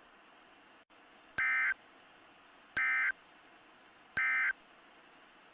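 Three short bursts of EAS/SAME digital data tones, a warbling two-tone modem-like chirp, each about a third of a second long and about 1.4 s apart, over faint steady hiss. This is the End of Message signal that closes a NOAA Weather Radio test broadcast.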